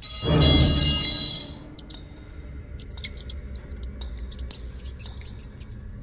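Kitchen utensils crash to the floor, clattering and ringing for about a second and a half. After that come scattered short squeaks and scratches of rats.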